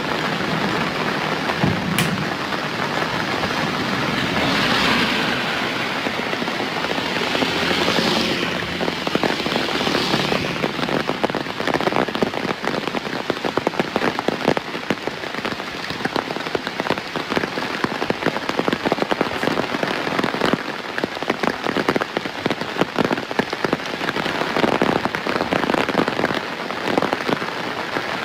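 Steady rain falling on surfaces, a dense patter of drops. A low steady hum sits underneath for roughly the first ten seconds.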